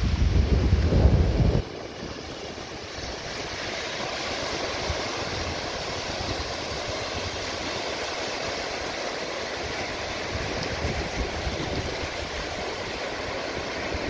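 Small surf breaking and washing up a sandy beach, a steady rush of water. Wind buffets the microphone with a low rumble for the first second and a half, then cuts off suddenly.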